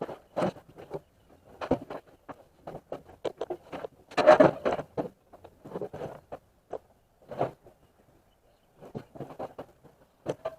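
Irregular knocks, clatter and rustling of objects being handled and moved, with footsteps; the loudest burst of clatter comes about four seconds in, followed by a brief lull near eight seconds.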